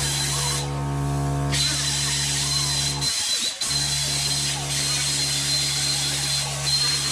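Plasma cutter running steadily while cutting a steel truck frame: a hiss with a thin high whine and a low hum. It cuts out briefly about three seconds in and starts again half a second later.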